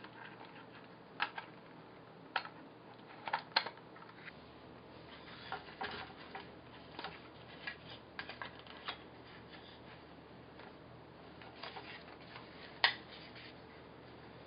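Irregular light plastic clicks and taps as a smartphone is handled and fitted into plastic VR headsets (a View-Master viewer, then a Homido headset), with one sharper click near the end.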